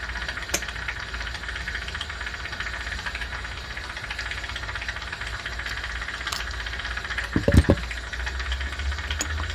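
Jewelry steam cleaner running with a steady hum and hiss, a machine its owner thinks may be on its way out. A few light clicks and one louder knock about three-quarters through come from handling at the bench.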